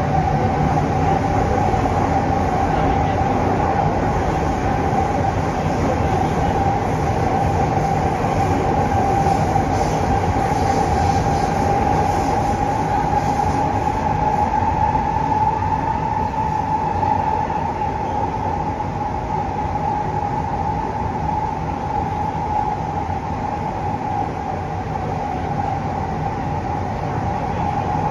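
Siemens C651 metro train running at speed, heard from inside the car: a continuous rumble of wheels on the track with a steady high tone above it that swells slightly and then eases, the whole getting a little quieter in the second half.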